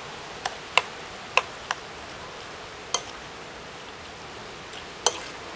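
A metal spoon clinking and scraping against a ceramic bowl while mixing seasoned minced crab meat: about six sharp, irregular taps over a steady background hiss.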